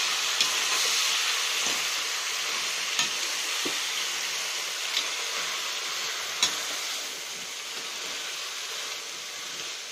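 Crab pieces and ground masala paste sizzling in a steel kadai while a spatula stirs them, with a handful of sharp clicks of the spatula against the pan, the loudest about six and a half seconds in. The sizzle eases slightly after about seven seconds.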